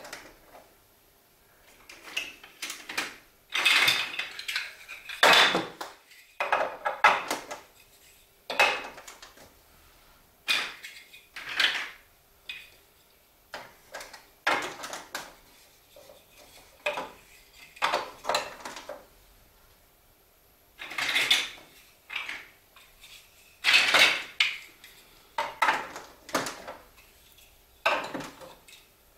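Hard plastic Duplo blocks and marble-run pieces clicking and clattering as they are handled and set in place, in irregular short bursts a second or two apart.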